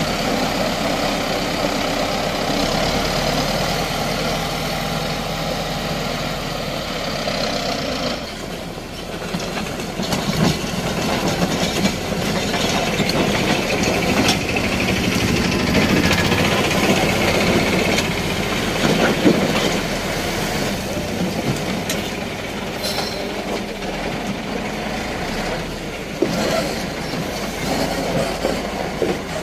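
Caterpillar 130G motor grader's diesel engine running while its blade scrapes through loose gravel, with a continuous grinding rattle of stones and scattered knocks; the sound turns heavier and rougher about eight seconds in.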